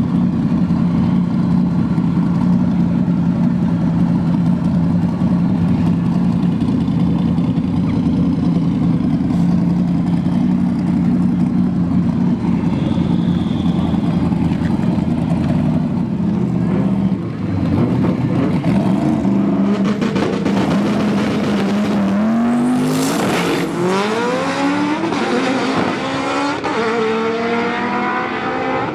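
Drag-race car engines running at the starting line with a steady drone, then launching about two-thirds of the way in and revving up through the gears, the pitch climbing and stepping up again and again as the cars pull away.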